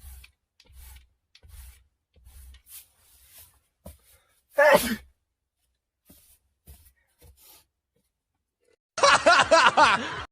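A few faint sniffing breaths, then a man sneezing once, a short loud burst about halfway through. Near the end comes a loud clamour of several voices at once.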